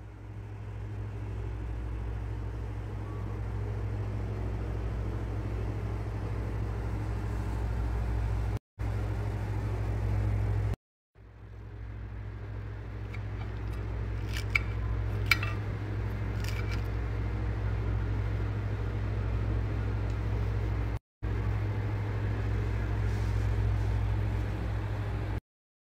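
A steady low hum, strongest in the bass, that breaks off briefly a few times, with a few faint clicks about midway.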